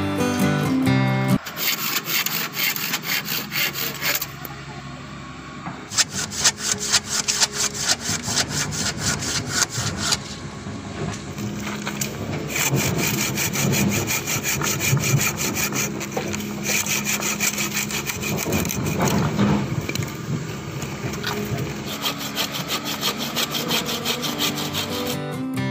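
Hand saw cutting through an old, weathered wooden plank in rapid back-and-forth strokes, with a couple of short pauses. Acoustic guitar music stops about a second in and comes back at the very end.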